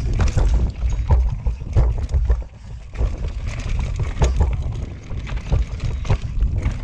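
Mountain bike ridden fast down rocky dirt singletrack: tyres rolling over dirt and rocks with many sharp knocks and rattles from the bike taking impacts, over a steady low wind rumble on the microphone. It eases briefly about two and a half seconds in.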